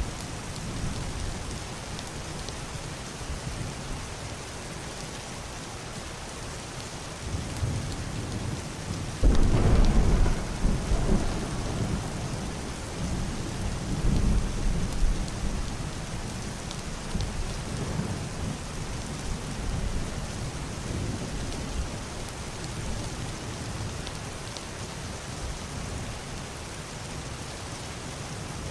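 Steady heavy rain on a roof and window glass, with a rumble of thunder that breaks in suddenly about a third of the way through, swells again a few seconds later and slowly dies away.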